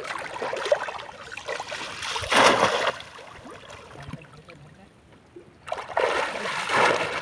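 Shallow pond water splashing and sloshing as a man wades and lunges with his hands, grabbing for a fish. Two bouts of splashing: the first and loudest at the start, a second near the end.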